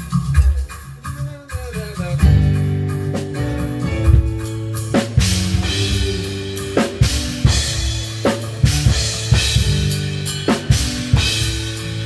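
Live band playing with a drum kit: kick, snare and cymbal crashes over held chords and bass. Sparse at first, with the full band coming in about two seconds in.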